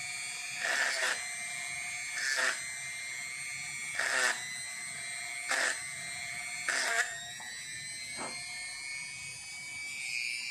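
Electric rotary tool running with a steady high-pitched whine while drilling a hole in a camera dummy-battery coupler, with six short grinding surges as the bit bites in. The whine's pitch creeps up near the end.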